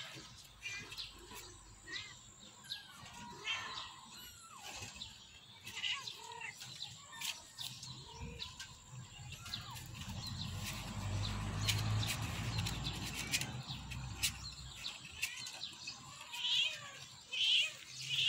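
Small birds chirping and twittering, with a low rumble that swells and fades in the middle.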